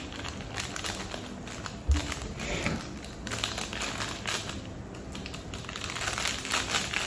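Crinkling of a small packet being torn open and handled over a mug, in a run of short crackles, with one soft thump about two seconds in.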